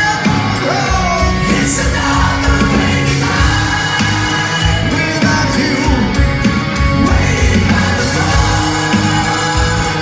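Live rock band playing, a male lead singer singing over electric guitars, bass and drums.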